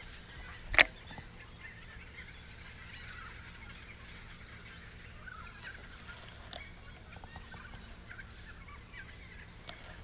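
A single sharp knock about a second in, then quiet outdoor ambience with faint distant bird calls.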